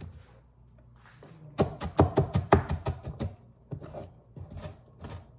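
Chef's knife chopping red onion on a cutting board: a quick run of sharp knocks starting about a second and a half in, around five or six a second, then a few scattered strikes.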